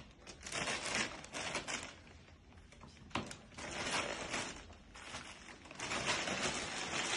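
Plastic and fabric bags rustling as they are handled and emptied onto a table, in three bursts, with a light click about three seconds in.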